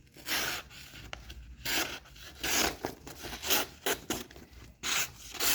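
Victorinox Hunter Pro Alox blade slicing through paper in a quick series of short strokes. It is an edge check after heavy cardboard cutting, with the edge catching slightly.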